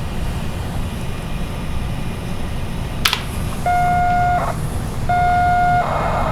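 TRS-80 Color Computer cassette output during a CSAVE. A sharp click about three seconds in is followed by two short steady tones with a brief gap between them. Near the end a warbling, rapidly changing data tone begins: the program being written out as audio.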